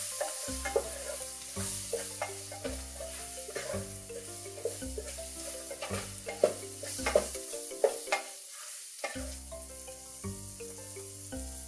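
Food sizzling in a frying pan with a utensil stirring and scraping it in short strokes, over soft background music with a slow bass line that drops out briefly about eight seconds in.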